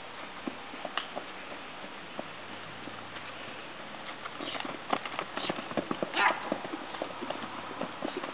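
Hooves of a Morgan stallion on the dirt footing of a round pen: scattered steps at first, then quicker and louder about halfway through as he canters on the lunge line. One short, louder noise about two-thirds of the way through.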